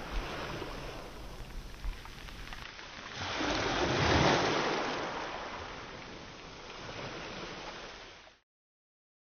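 Sea surf washing in. One wave swells up about three seconds in and peaks a second later, then fades away before the sound stops short.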